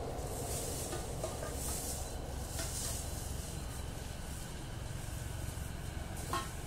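Steady low rumble of distant vehicles with a faint hiss above it, and a small click near the end.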